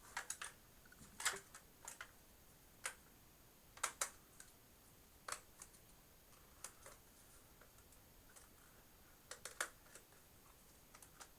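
Light, irregular plastic clicks and snaps of tool-less hard-drive caddies being handled and pressed onto drives, about fifteen in all, some in quick pairs.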